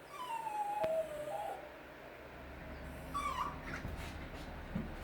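Jack Russell puppy whining: a long falling whine over the first second and a half, then a shorter whine about three seconds in.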